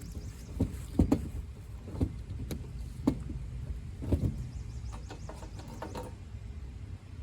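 A series of irregular knocks and clunks, about a dozen, spaced roughly half a second to a second apart, with the loudest pair about a second in. Under them runs a steady low rumble.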